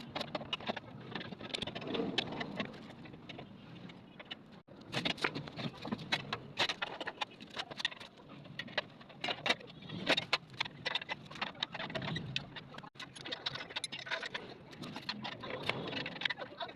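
Irregular clicking and clinking of metal tools and engine parts being handled, with no engine running.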